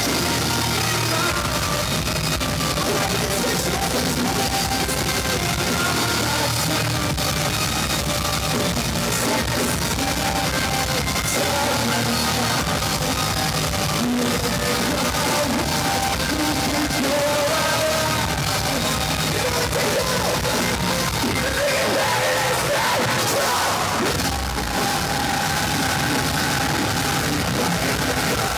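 Live metalcore band playing loud, with yelled vocals over drums and guitars, heard from within the crowd.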